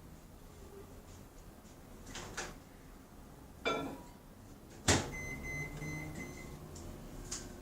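Plastic containers and lids being handled: a few light clicks and knocks, the sharpest a snap about five seconds in, followed by a faint thin high tone for about a second and a half.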